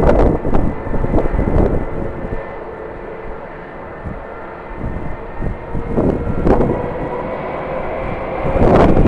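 Jet airliner engines running with a steady hum and whine, heard across an airport apron. Strong wind buffets the microphone in loud gusts at the start and again near the end, easing in between.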